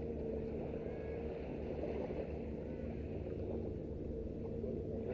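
A motor running steadily: a low, even drone whose pitch does not change.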